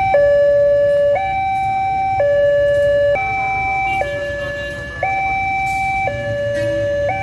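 Railway level-crossing warning siren sounding from its loudspeakers, a steady two-tone hi-lo signal switching pitch about once a second, warning that the crossing barriers are closing for an approaching train.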